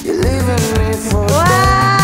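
Background pop music with a steady beat; the melody holds one long note in the second half.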